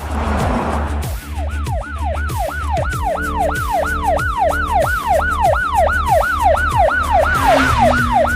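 Ambulance siren in fast yelp mode, about three rise-and-fall sweeps a second, starting about a second in, over electronic music with a heavy bass beat.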